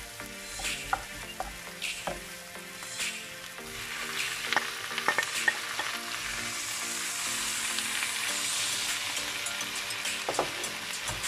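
Diced onion and garlic sizzling in oil in a nonstick wok, with a wooden spoon scraping and stirring about once a second. About four seconds in, chopped tomatoes go into the pan with a few knocks, and the sizzle grows louder.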